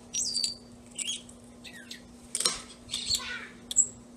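Hard shells clicking and clinking against each other as they are handled on a table, with small birds chirping in short, high, downward-sliding calls.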